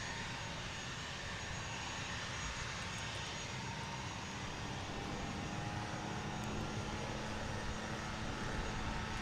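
Airplane engine drone, steady and even, with no clear fly-past swell.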